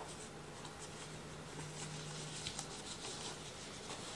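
Faint rustling and rubbing of packaging as a small camera is taken out of its box by hand, with a few light taps.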